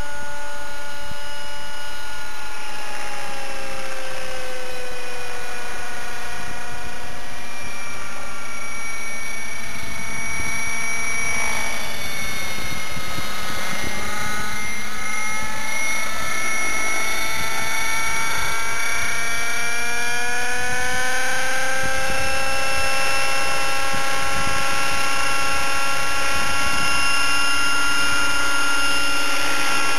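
Nitro RC helicopter in flight: a T-Rex 600 with an O.S. 50 Hyper two-stroke glow engine and Hatori performance muffler, giving a steady high engine whine mixed with the rotor. The pitch sags over the first few seconds, wavers around the middle, then climbs back up and holds higher toward the end.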